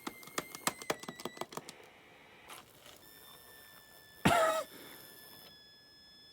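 Animatronic skeleton's small gear motor clicking rapidly for about a second and a half and then trailing off, the struggling motor of a toy that keeps jamming. About four seconds in comes one short, loud sound that falls in pitch.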